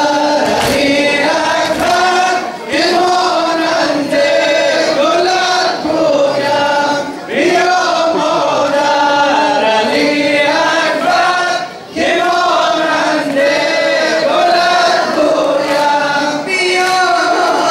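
A Muharram lament (noha) sung by a male voice over a microphone, with a group of men chanting along in unison. Sharp strikes come in at intervals, clearest near the start and end, from the mourners' chest-beating (sineh zani).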